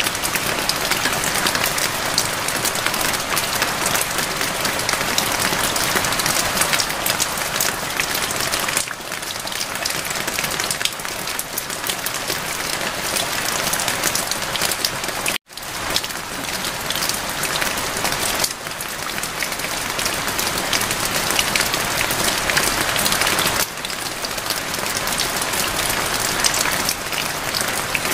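Steady rain falling, a dense hiss full of fine drop ticks. It cuts out completely for an instant about halfway through, then carries on.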